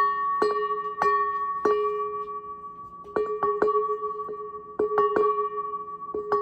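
A metal bowl struck lightly about a dozen times in uneven clusters, each strike renewing the same steady ringing tones that hold at one pitch and slowly fade between strikes.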